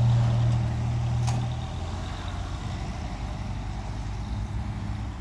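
Road vehicle engine running as a low steady hum, louder for the first two seconds and then settling to a quieter drone.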